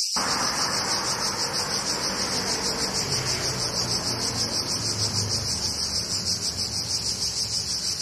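Cicadas buzzing in a steady, rapidly pulsing high-pitched chorus. Just after the start, a rough, rushing noise comes in beneath it.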